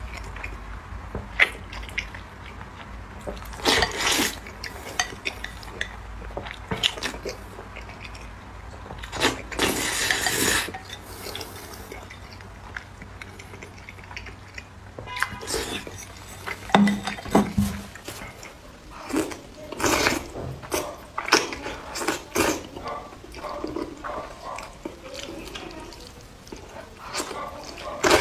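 A person eating spicy noodles close to the microphone: irregular slurps and chewing, with sharp clicks of chopsticks against the bowl.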